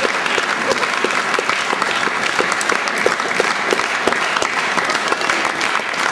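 Sustained applause from a theatre audience and actors: many people clapping steadily without a break.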